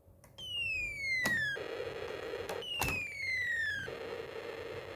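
Snap Circuits electronic sound circuit playing a falling-bomb effect through its small speaker: a whistle gliding down in pitch for about a second, then a noisy blast, repeating twice, with a third whistle starting near the end. It keeps retriggering because a hand-turned DC motor stands in for the switch, sending a continuous signal. Two sharp clicks sound in between.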